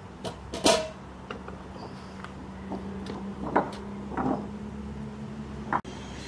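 A few sharp knocks and clicks, the loudest about two-thirds of a second in, over a low steady hum.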